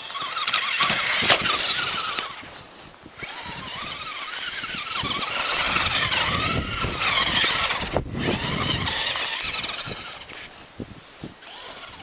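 Traxxas Rustler electric RC truck's brushed motor and gear train whining under throttle as it drives on snow. It comes in two runs, a short one at the start and a longer one from a few seconds in, with the pitch rising and falling with the throttle.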